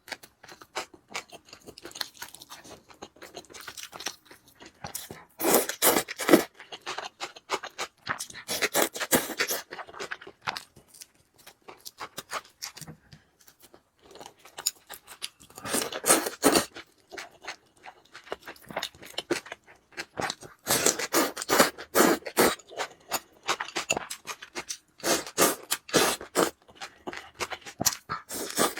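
Close-miked eating of noodles and Chinese food: chewing and crunching in several bouts a few seconds long, with quieter clicks between them.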